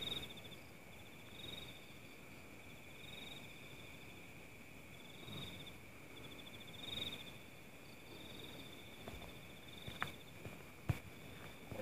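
Night insects calling: a steady high buzz with pulsed, trilling chirps that repeat every second or two, faint overall. Near the end come a couple of sharp clicks.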